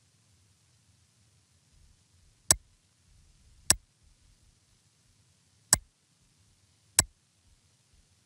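Four sharp computer mouse clicks in two pairs, each pair a little over a second apart with about two seconds between the pairs. Each click toggles a simulated input switch in PLC simulation software.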